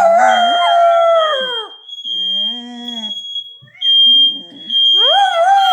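Dog howling at a sounding smoke alarm: three long howls that rise and then slide down in pitch, over the alarm's steady high-pitched tone.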